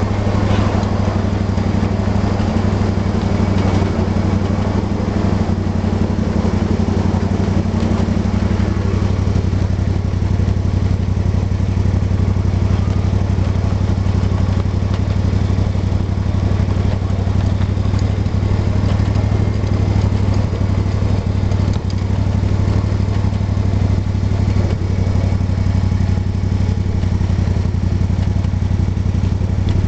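Small engine of a ride-on 1/8-scale SOO Line F7A diesel-outline locomotive running steadily with a constant low hum while the train rolls along.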